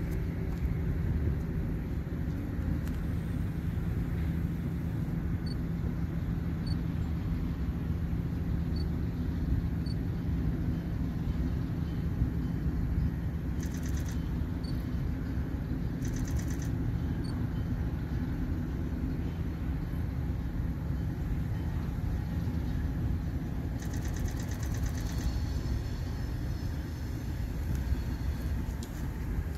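Steady low rumble of a diesel freight train approaching in the distance, with wind on the microphone.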